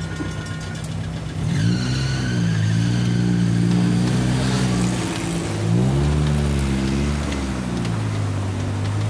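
Level-crossing warning bell ringing, stopping about a second in as the signal goes dark; then car engines revving and accelerating across the tracks, one pulling away around the middle.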